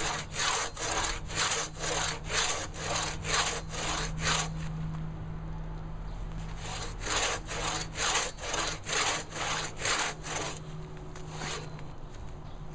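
Large coarse-toothed hand saw cutting into a thick timber beam, rasping back and forth about two strokes a second. The sawing stops for a couple of seconds in the middle, resumes, and ends with one last stroke near the end.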